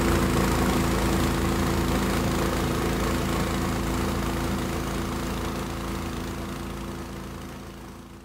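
Small boat's engine running steadily under way, with a rush of water and wind over it. It fades out toward the end.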